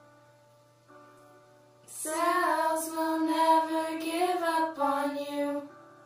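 Quiet sustained keyboard chords, then about two seconds in a girl's voice comes in singing a long, wordless, held line over them. The voice stops a little before the end and the soft chords carry on.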